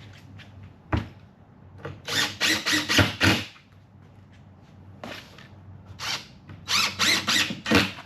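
Power drill driving screws through the plywood back panel into the cabinet sides, in two runs of short trigger bursts, one screw after another. There is a single knock just before the first screw.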